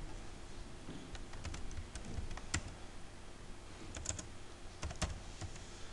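Computer keyboard keys pressed one at a time: a slow, irregular run of about a dozen faint keystroke clicks as a Tab and a short word are typed.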